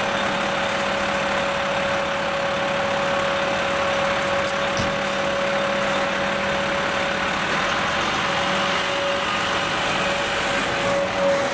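Heavy rescue fire truck's diesel engine idling and running steadily, with a steady high-pitched tone held throughout.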